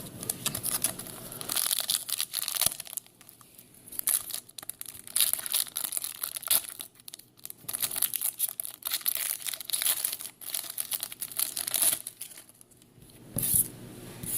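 A Topps football trading-card pack wrapper being torn open and crinkled by hand, in several irregular spells of rustling and crackling with short pauses between them.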